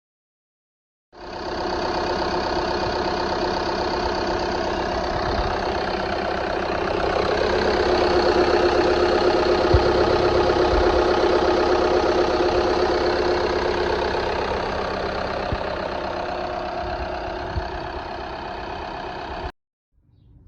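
VW Golf TDI turbo-diesel engine idling steadily. It starts abruptly about a second in, grows somewhat louder midway, eases back, and cuts off sharply shortly before the end.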